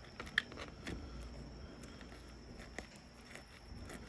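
Faint handling noise from gloved hands working inside a dead iguana's opened body: scattered soft clicks, the sharpest about half a second in and another near three seconds, over a low steady background rumble.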